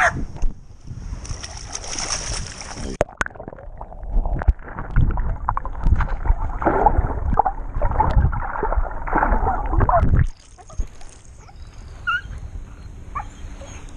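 Water splashing as a catfish is let go by hand, then muffled gurgling and sloshing with the microphone under the surface. The noise drops off sharply about ten seconds in.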